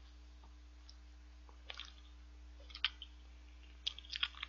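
A person chewing a bite of soft cream-filled choux bun, faint, with a few small wet mouth clicks over a steady low hum.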